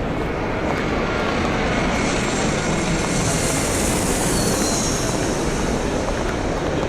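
Airport terminal background noise, with a hissing rush that swells through the middle and fades again as something passes, a faint falling whine near its peak.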